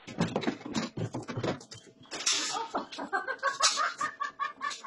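A chicken clucking in a quick series of short calls, about four a second. The calls start about three seconds in, after a couple of seconds of scratchy rustling noise.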